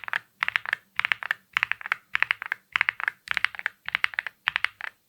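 Typing on a Nada65 Panda mechanical keyboard with ceramic keycaps: quick rolls of several keystrokes, about two rolls a second, with sharp clicky key sounds.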